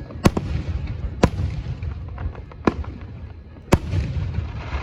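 Fireworks going off: four sharp bangs about a second apart, with fainter crackles and a low rumble between them.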